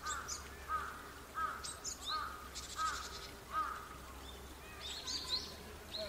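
Japanese tit calling: a regular series of six clear, arched notes about two-thirds of a second apart, which the recordist was unsure was song. Thin high notes and a short buzzy rattle come about halfway through.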